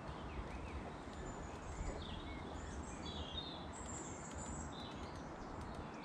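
Small songbirds chirping and twittering over a steady low outdoor rumble, with a few faint scattered ticks.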